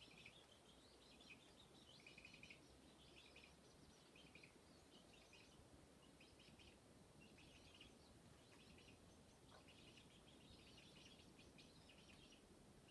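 Faint high-pitched bird chirping: clusters of short, rapid notes repeating every second or so over a low background hiss.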